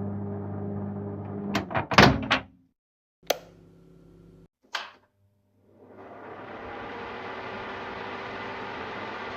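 A kitchen appliance hums steadily, then stops with a cluster of sharp clacks like a door or latch being worked, the loudest about two seconds in, followed by two single clicks. After a short silence a different steady whooshing hum fades in and holds.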